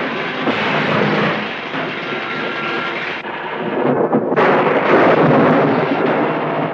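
Thunder from a lightning storm on an old film soundtrack: a dense, continuous rolling rumble that eases about three seconds in and swells again just past four seconds.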